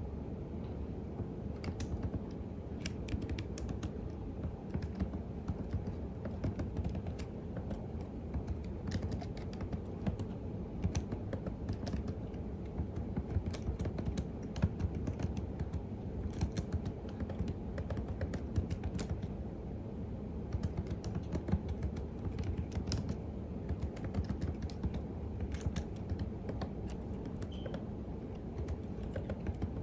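Typing on a computer keyboard: a continuous run of irregular keystroke clicks, over a steady low hum.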